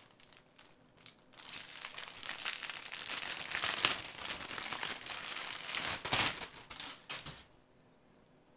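Plastic packaging crinkling as a towel is unwrapped: a few soft ticks at first, then dense rustling for about six seconds with a couple of louder crackles, stopping about a second before the end.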